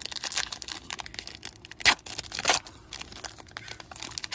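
Foil trading-card pack wrapper being torn open and crinkled in the hands: a run of crackling rustles, with a couple of sharper crackles about halfway through.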